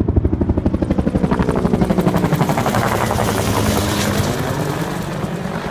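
Helicopter passing close by, its rotor blades beating rapidly, about eight or nine beats a second. The pitch drops and the beating fades as it moves away.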